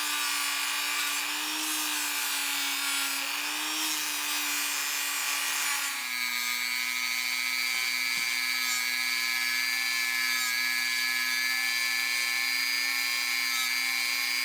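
Electric polishing motor running steadily with a constant whine, over a rubbing hiss as brass is worked against the spinning wheel. Its pitch drops a little about six seconds in, as if under added load.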